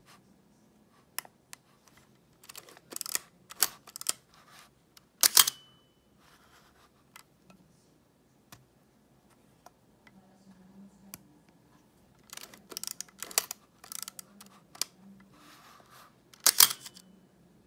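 Nikon F film SLR's mechanism clicking and clacking in several separate bursts, with the loudest snaps about five seconds in and near the end, as its faulty mirror lock-up is worked.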